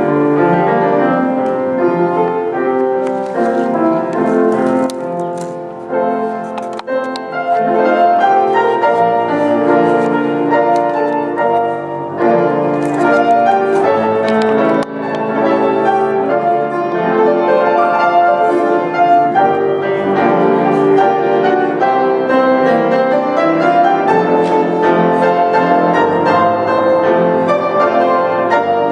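Solo grand piano playing, full chords and sustained notes, with a brief softer passage about six seconds in.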